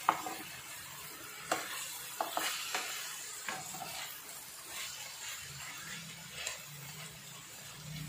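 Sliced bitter gourd, onion and potato sizzling in oil in a frying pan while a wooden spatula stirs them, with a scatter of scrapes and taps of the spatula against the pan.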